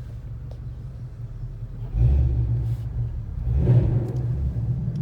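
The 2012 Ford Mustang Boss 302's 5.0-litre V8 rumbling at low revs, heard from inside the cabin, then getting louder about two seconds in as the car pulls away, with a second swell a little later.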